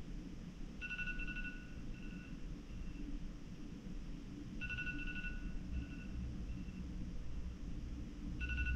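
Phone alarm ringing: a short run of high beeps that fades away, repeated about every four seconds, three times here.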